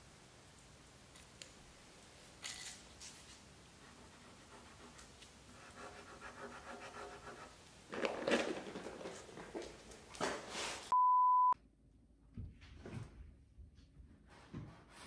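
A dog panting and moving about, with faint rustling. About eleven seconds in, a short, steady electronic beep sounds for half a second, followed by scattered rustles and knocks of animals nosing into paper bags.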